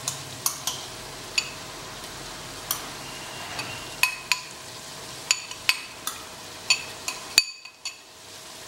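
Chopped onions frying in ghee in an aluminium pot with a low steady sizzle, over which a dozen or so sharp ringing clinks sound as ground almond, garlic and onion paste is scraped and tapped out of a glass bowl into the pot. The sound drops out for a moment near the end.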